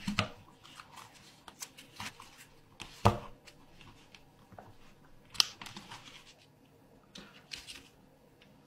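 Origami paper being folded and creased by hand: scattered short crisp rustles and clicks, the loudest about three seconds in and again about five and a half seconds in.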